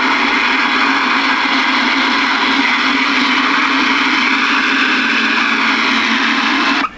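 Loud static hiss from a General Stonewall Jackson ten-meter base station radio's receiver, with a steady low hum under it, cutting off suddenly near the end.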